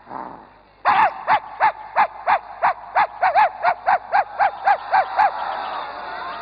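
Dog barking: a rapid run of about fifteen short yapping barks, roughly three a second, each rising and falling in pitch. It is followed by a softer, rougher sound for the last second or so.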